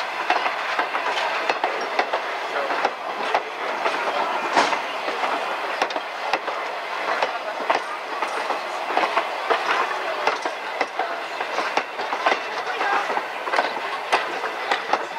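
Wooden passenger coaches of a steam excursion train rolling past close by, their wheels clicking and rattling over the rail joints in an irregular run of sharp clicks over a steady rumble of the cars.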